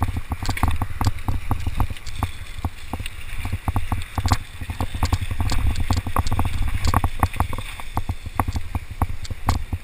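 Mountain bike rattling and clattering over rough rock and dirt on a fast descent, with many irregular sharp knocks from the bike. Heavy wind rumble on the microphone runs underneath.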